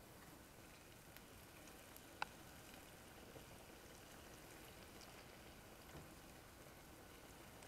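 Faint, quiet sizzle of bananas frying in oil, with scattered small crackles and one sharp click about two seconds in.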